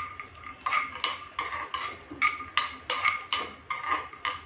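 Metal spoon knocking and scraping in a frying pan while stirring cashews and almonds, the pan ringing with each tap, about two or three taps a second.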